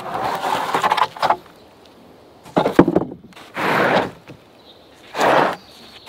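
Rough-sawn wooden boards being dragged off a stacked pile: four dry wood-on-wood scrapes, the first about a second long, one of them ending in a sharp knock.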